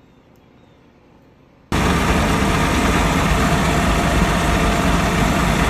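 Faint background hiss, then a sudden cut about two seconds in to a loud, steady rushing noise over a low, even engine hum, like a vehicle running.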